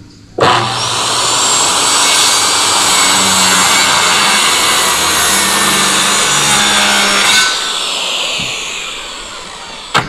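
Handheld power saw cutting through a wooden board, running loud and steady for about seven seconds, then the blade winding down. A sharp click comes near the end.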